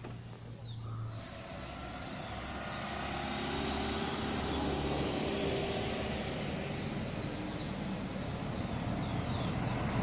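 A pickup truck drives uphill toward the listener, its engine and tyres growing louder over the first few seconds and then holding steady. Small birds chirp repeatedly in the background.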